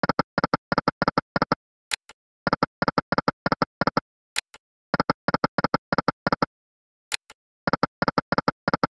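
Slot game reel-spin sound effect: short electronic ticks, about seven a second, in runs of about a second and a half, with a sharp high click in each pause between runs, as one spin follows another.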